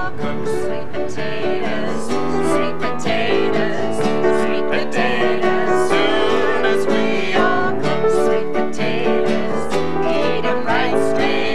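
Acoustic guitar and piano music with singing voices, a steady, upbeat song.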